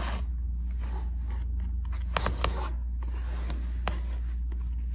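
Needle and embroidery thread drawn through fabric: short scratchy rasps and light clicks, a couple of sharper ones about two seconds in. A steady low electrical hum runs underneath.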